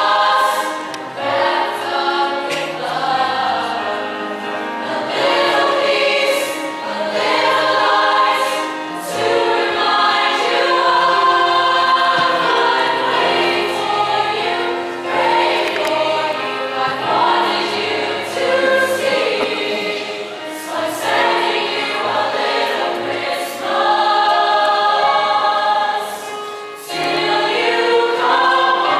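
Large mixed choir singing in harmony, with long held chords that change every second or so, heard from the audience seats of a concert hall.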